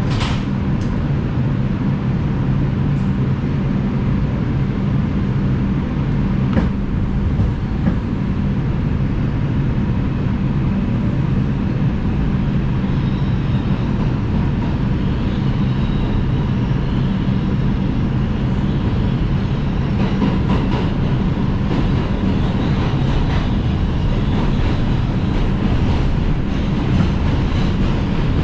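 New York City subway train running through the tunnel, heard from inside the car: a steady rumble of wheels on rail with a low hum underneath and an occasional faint click.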